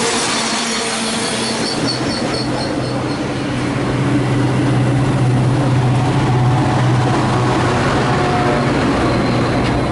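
A train running close past the station platform, its wheels giving a high squeal in the first few seconds. A steady low drone then holds over the rolling noise until the sound cuts off suddenly at the end.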